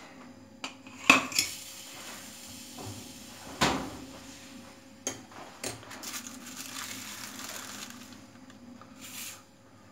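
Metal pizza pan clattering as it comes out of the oven and is set down on a granite counter: a few sharp metallic knocks, the loudest about a second in and again at about three and a half seconds, followed by a couple of lighter knocks.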